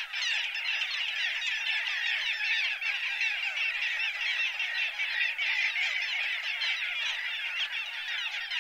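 A colony of little gulls calling: a dense, unbroken chatter of many short overlapping calls.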